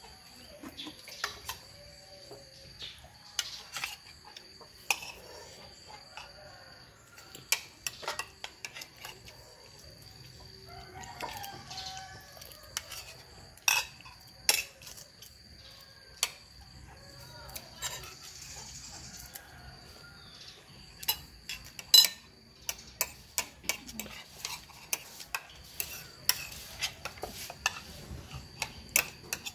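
Metal spoon clinking and scraping against a bowl in repeated sharp clicks as a child eats rice. A rooster crows in the background, about a third of the way in and again a little past the middle.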